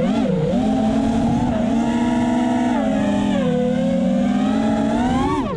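FPV quadcopter's brushless motors whining in flight, the pitch rising and falling with throttle. It wavers in the first half second, holds fairly steady through the middle, then drops sharply near the end as the motors slow.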